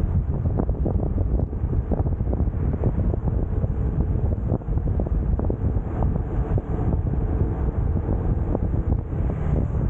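Heavy wind buffeting on the camera microphone of a motor scooter riding at speed, with the scooter's engine running steadily underneath.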